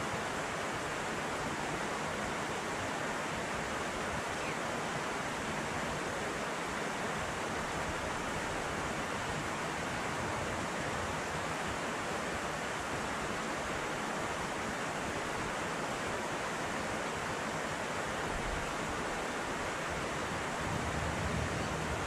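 Shallow creek water rushing steadily over rocks, an even hiss, with some low rumbling near the end.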